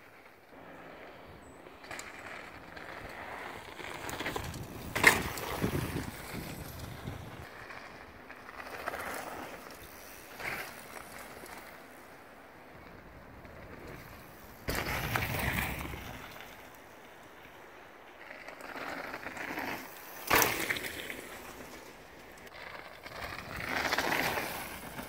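Mountain bikes rolling past on a dirt trail: several swells of tyre noise on dirt and gravel as riders pass one after another, with two sharp knocks along the way.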